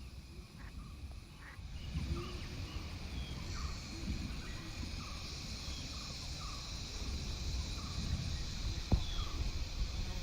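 Natural ambience: a bird repeats a short falling note over and over, less than a second apart, over a steady chorus of insects and a low rumble. A single sharp click sounds near the end.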